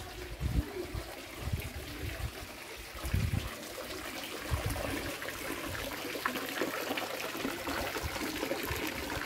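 Water trickling from the spouts of a monolithic stone fountain into its basin, getting louder toward the end. A few short low thumps come in the first few seconds.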